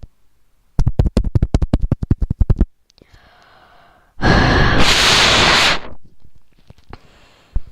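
Harsh wind made by blowing straight onto the microphone: first a rapid fluttering run of puffs, about ten a second, then one long loud gust.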